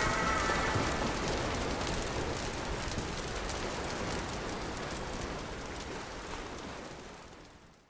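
Wood fire crackling in a BioLite Fire Pit, a steady hiss with many small pops, fading out slowly to silence near the end.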